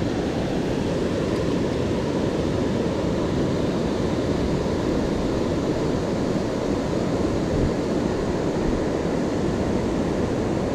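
Steady, even rushing noise outdoors, with no distinct events in it.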